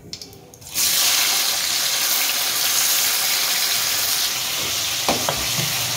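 Sliced onions dropped into hot oil in a kadhai: a loud sizzle bursts in under a second in and carries on steadily as they fry.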